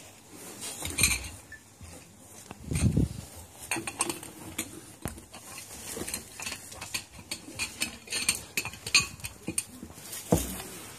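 An African elephant's trunk rummaging among plates, bowls and cutlery on a breakfast table, making scattered clinks and clatters of crockery and metal, with a few dull low thumps among them.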